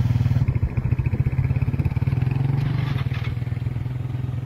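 Small motorcycle engine running steadily as the bike rides off carrying two people, growing gradually quieter as it moves away.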